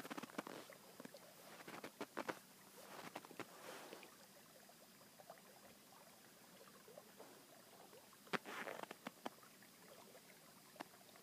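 Faint, irregular crunching of footsteps in snow, in scattered clusters of short crackles with stretches of near silence between; the clearest come near the start, around the middle and about eight seconds in.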